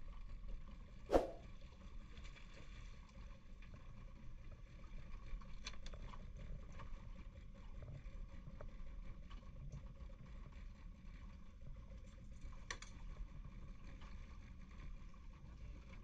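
Steady low rumble of wind and water around a small open fishing boat at sea, with a sharp knock about a second in and a few faint clicks on board.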